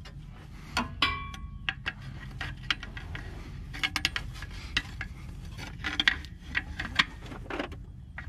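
Small steel pry bar clicking, scraping and clinking against a transmission cooler line fitting on an Allison 1000 transmission as it is pried loose. About a second in comes one clear ringing metal clink.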